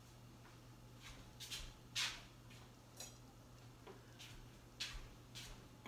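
Faint kitchen handling sounds: dishes and utensils being moved, a string of light clicks and clinks, the loudest about two seconds in, over a low steady hum.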